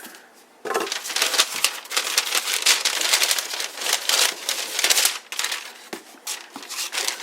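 Packing wrapping being crinkled and rustled as a new boot is unwrapped from its box: a loud, continuous crinkling for about four seconds, starting just under a second in, then a few softer rustles near the end.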